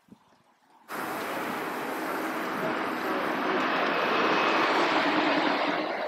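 Steam escaping with a loud, steady hiss from an Aveling and Porter steam roller, starting suddenly about a second in and swelling slightly toward the end.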